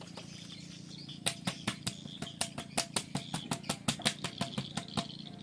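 A parakeet flapping its wings, giving a quick run of sharp beats about five or six a second that starts about a second in, over a steady low hum.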